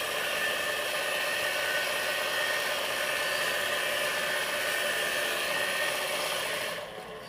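Small DC-motor mini belt sander running steadily, its sanding belt grinding the edges of a duralumin airgun trigger bar held against it. It cuts out near the end as the motor is switched off.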